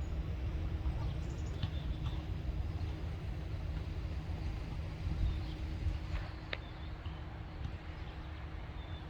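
Low, steady outdoor rumble with a few short, high bird chirps scattered through it and a single sharp click about six and a half seconds in.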